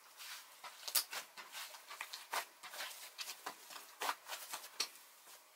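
Hands squishing, pressing and poking a soft, fluffy clay slime, making an irregular run of sticky clicks and small pops.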